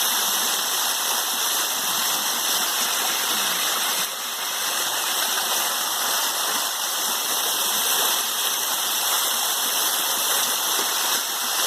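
Waterfall: water falling and rushing in a steady, unbroken roar of spray and splashing.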